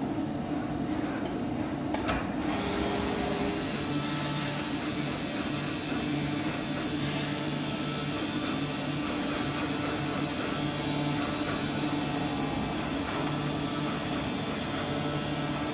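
AOKE DCZ70 flatbed CNC cutter running while V-cut grooving corrugated plastic sheet: steady machine noise from its vacuum hold-down and drive motors, with lower motor hums coming and going as the cutting head moves. A thin high whine sets in about two and a half seconds in.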